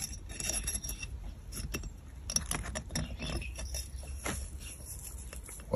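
Light metallic clicks and scrapes of a new piston ring being pushed by hand down into a 250cc quad engine's cylinder bore, setting it square to check its end gap.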